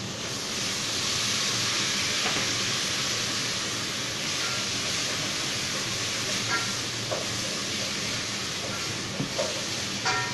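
Steady sizzling hiss from a pan on a gas stove, with several light clinks of kitchenware.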